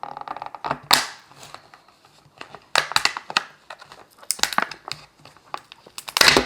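Gift packaging being handled and opened by hand: irregular crinkling and rustling strokes, louder in a cluster near the end.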